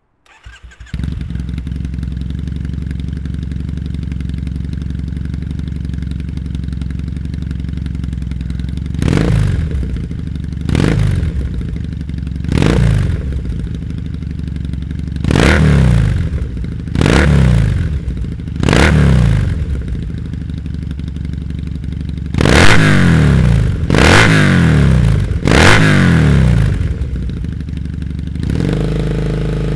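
Triumph Thruxton 900's air-cooled parallel twin running through a British Customs GP stainless steel muffler. It idles steadily, then is blipped sharply about nine times, each rev rising and dropping straight back to idle, with the last three the loudest.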